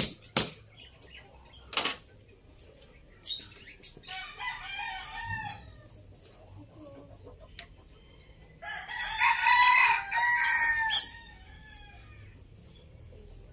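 A rooster crowing: a long crow of about two seconds beginning around nine seconds in, the loudest sound, after a shorter call around four to five seconds in. A few sharp knocks sound in the first few seconds.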